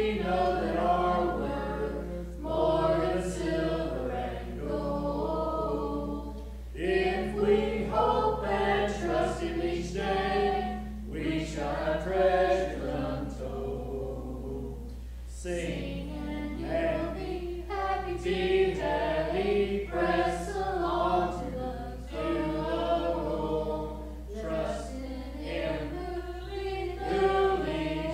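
Congregational hymn sung a cappella with no instruments, led by a man's voice at the pulpit microphone, in sung phrases a few seconds long. A steady low hum runs underneath.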